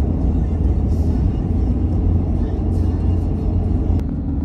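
Steady low rumble of a pickup truck's engine and tyres heard from inside the cab while driving on a snow-covered highway.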